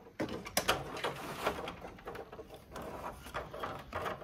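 Hard plastic card-reader spacer and bracket handled, with cables being pulled through them: irregular rustling and light clicks of plastic knocking and rubbing.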